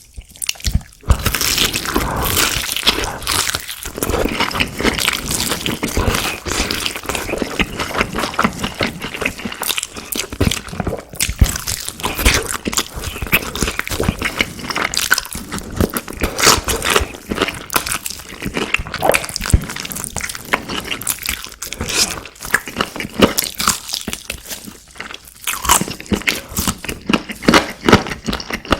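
Close-miked biting and chewing of crunchy fried food: a dense, continuous run of crisp crunches that starts about a second in.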